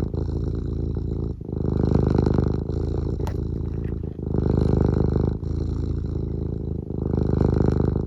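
Domestic cat purring close up: a continuous low rumble that swells and eases with each breath, a brief dip at every change between breathing in and breathing out, and every other phase louder.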